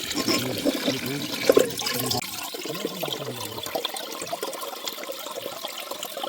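Running water, busiest in the first couple of seconds and then easing a little.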